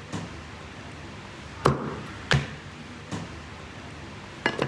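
Chopping on a cutting board: about five sharp knocks at irregular intervals, the two loudest close together in the middle and a quick double knock near the end.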